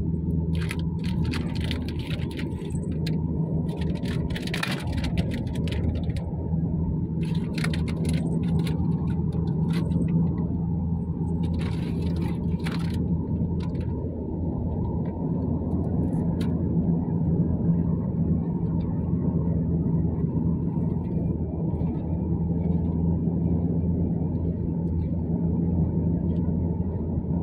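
Steady low drone of a car's engine and road noise, heard from inside the cabin of the moving car. During the first half it is overlaid by several short bursts of rustling or scraping handling noise.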